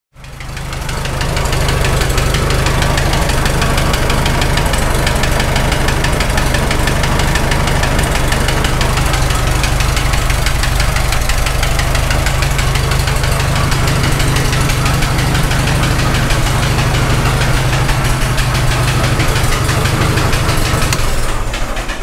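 Farmall H tractor's four-cylinder engine idling with a steady, regular knock, then shut off near the end. The knock is the fault under diagnosis: it has been traced to the cylinder head, where a loosening valve seat insert on number 3 cylinder is suspected.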